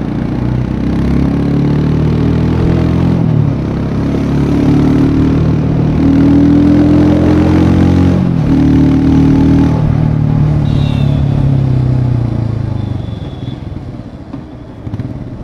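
Royal Enfield Scram 411's 411 cc single-cylinder engine and exhaust accelerating under way. The revs rise and drop back at two gear changes, about three and a half and eight seconds in, then the engine eases off and quietens near the end.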